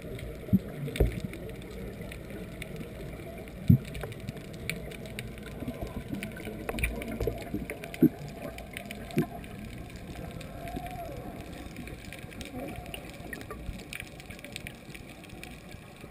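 Muffled underwater ambience picked up by a camera below the surface: a steady low rumble with bubble gurgles and a few sharp knocks, the loudest about four, eight and nine seconds in.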